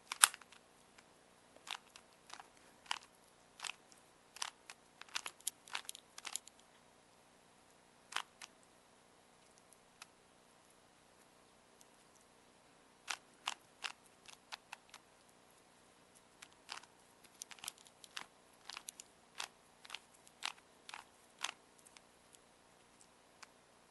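Plastic Rubik's Cube being twisted by hand as it is solved: sharp clicks from its layers turning, in uneven flurries with a pause of a few seconds in the middle.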